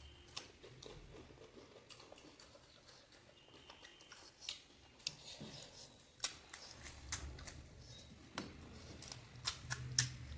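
Panipuri being chewed: the crisp puri shells crunch in irregular, sharp crackles, a few of them louder near the end.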